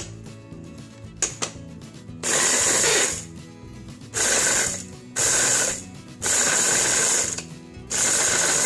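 Electric mini food chopper pulsed in five short bursts, its blade chopping fresh and dry coconut pieces with sugar and a little milk. A couple of plastic clicks come as the lid and motor top are fitted, about a second in.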